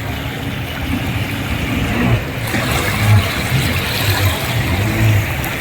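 Jet ski running over the sea: engine noise mixed with rushing, splashing water.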